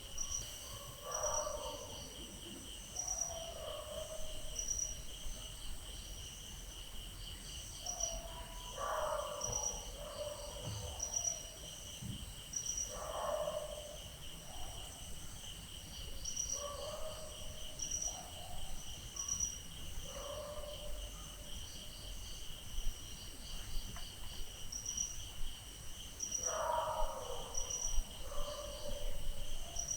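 Night ambience: crickets chirping in a steady pulsing chorus, with short dog barks every few seconds.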